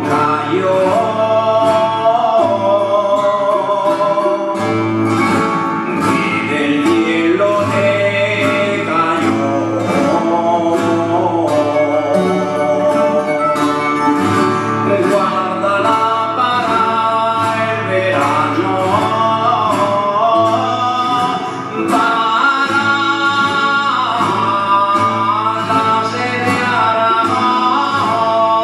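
Aragonese jota: a man singing long, ornamented held notes over a rondalla of plucked strings (bandurrias, lutes and guitars) strumming and picking steadily.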